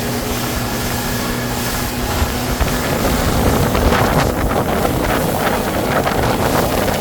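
Motorboat under way, its engine running under loud wind rushing over the microphone; the rushing grows louder and gustier about two seconds in.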